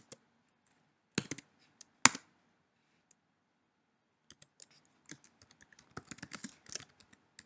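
Typing on a computer keyboard: a few separate key clicks in the first two seconds, the loudest about two seconds in, then a quicker run of keystrokes through the second half.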